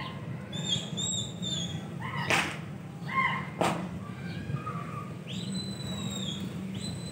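House sparrows chirping in short arched notes, with two sharp clicks about a second apart in the first half. From about five seconds in come longer, steady whistled bird notes, repeated, over a steady low background hum.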